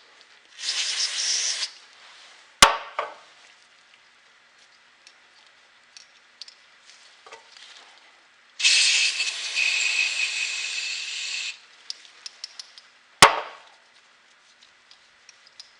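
Aerosol cleaner sprayed in two bursts onto a gummed-up small-engine carburetor: a short hiss about half a second in and a longer one of about three seconds past the middle. Two sharp clicks or knocks come between them and near the end, with faint tool ticks in the quiet stretches.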